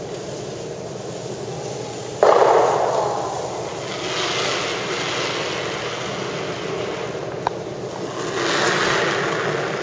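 Curling delivery: a sudden loud scrape about two seconds in as the curler pushes out of the hack and the granite stone starts sliding over the pebbled ice, its rumble and hiss then fading as it travels. A single sharp click comes later on.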